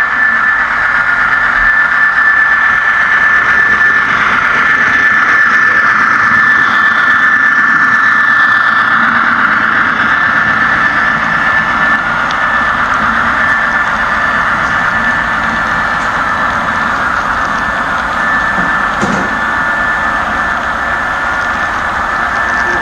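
HO-scale model freight train rolling past close by, a steady whir of wheels on rails with a high-pitched whine running through it.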